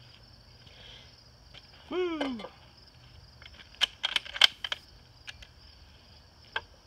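A bolt-action rifle being handled at the action: a quick run of sharp metallic clicks and clacks about four seconds in, with a single click near the end. Crickets chirp steadily throughout, and a short sound falling in pitch comes about two seconds in.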